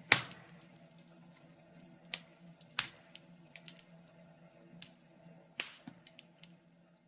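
Wood fire crackling in a fireplace: sparse, irregular sharp pops and snaps, about one every second, over a faint steady hum.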